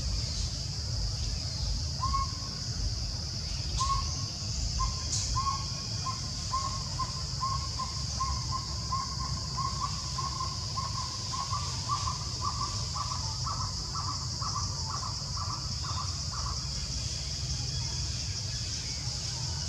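A bird calling a long series of short, even notes that come faster and grow louder, then stop suddenly, over a steady high hiss and a low rumble.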